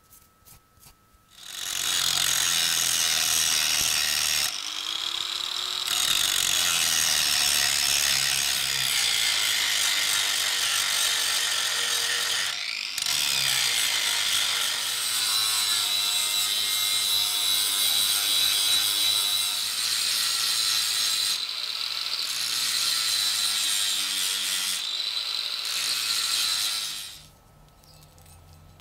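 Angle grinder grinding the rusty iron of an axe blade clamped in a vise: a steady high whine over rough grinding, starting about a second and a half in and stopping near the end, with the tool easing off the metal briefly a few times.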